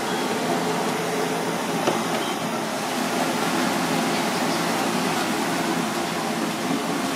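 Steady machine hum and hiss, even in level throughout, with one faint tap about two seconds in.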